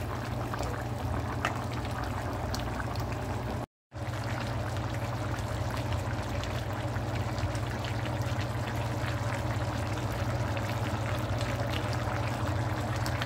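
A pan of chicken noodle soup simmering on an electric stovetop: steady bubbling and crackling of the broth over a low, steady hum. The sound drops out for a moment a little under four seconds in.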